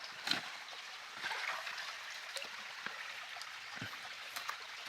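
Small jungle stream flowing and trickling in a steady hiss, with a few faint clicks and knocks scattered through it.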